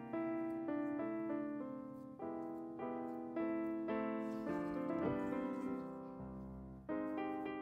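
Background piano music: a slow run of struck notes and chords, each fading after it is played.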